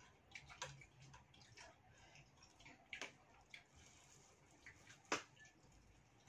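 Faint, scattered clicks of chopsticks and tableware against bowls and plates during a meal, with two sharper clicks about three and five seconds in.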